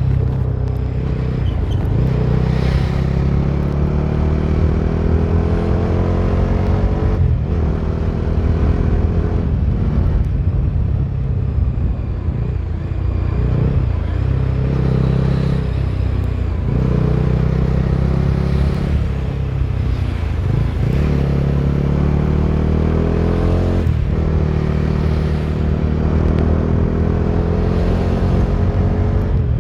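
Bajaj Dominar 250's single-cylinder engine pulling through the gears under way. Its pitch climbs steadily in each gear and drops briefly at each of about six shifts.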